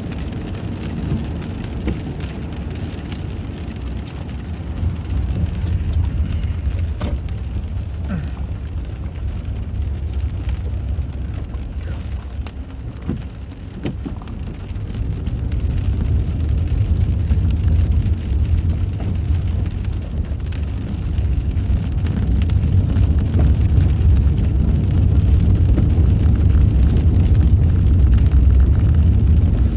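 Steady rain, with a heavy low rumble underneath that grows louder about halfway through.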